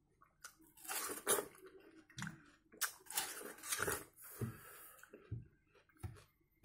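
A man biting and chewing watermelon flesh down to the rind, the bites and chews coming in irregular bursts with short gaps between them.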